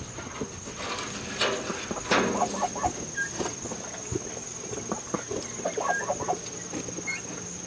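Young chickens and a young turkey giving scattered short clucks and calls, with light scratching and rustling in straw bedding.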